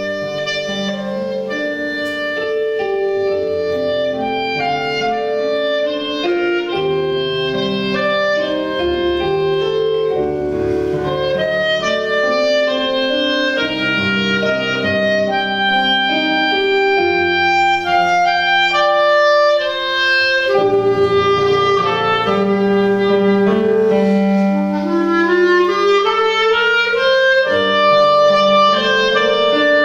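Solo clarinet playing a melody in sustained notes, accompanied by a piano.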